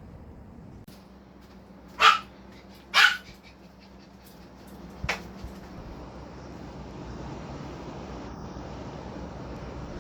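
A dog barking twice, about a second apart, then once more, more softly, a couple of seconds later, over a steady background noise.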